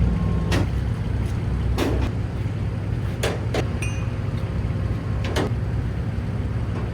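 Heavy engine running steadily under several sharp metallic knocks, five in all, spread across the few seconds, with a brief high tone about four seconds in.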